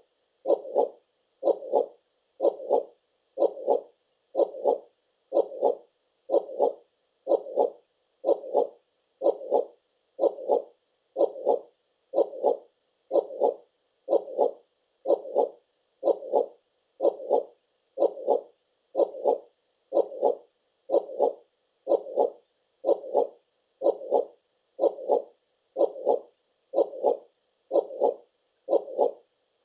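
Heartbeat sound: a steady lub-dub double beat repeating about once a second, evenly and without change.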